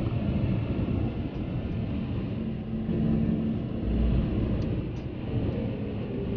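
Steady low road rumble heard inside a moving car's cabin, tyres running on a wet, slushy road with a steady hum underneath.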